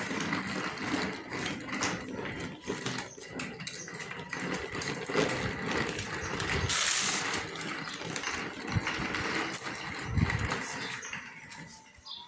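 Plastic baby walker pushed over a rough concrete floor, its small wheels rolling and rattling continuously with many scattered clicks and knocks. A brief louder hiss comes about seven seconds in.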